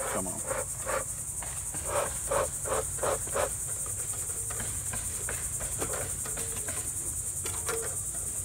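Steady high-pitched chorus of insects, with a run of quick soft strokes, about three a second, over the first few seconds and a few scattered ones later.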